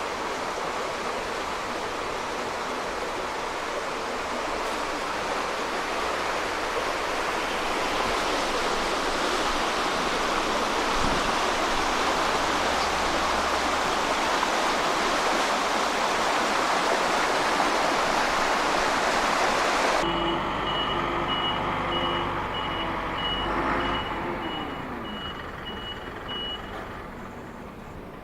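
Steady rushing water, like a river, that swells slowly for about twenty seconds. Then comes a sudden switch to a rapidly repeating high beep over a low hum, and the sound fades away near the end.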